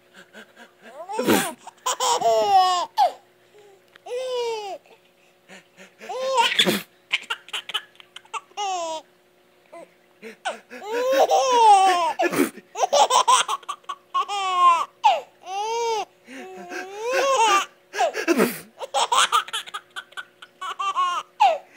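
A man sneezing loudly again and again, about every five or six seconds, while a baby answers with bursts of squealing, giggling laughter after each sneeze.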